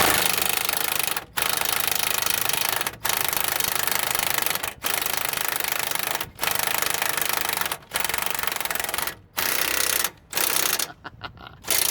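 Impact wrench hammering on a suspension nut in repeated trigger bursts of about one and a half seconds with short pauses between, the bursts getting shorter near the end. The nut tends to spin with its stud, so the wrench hesitates before it bites.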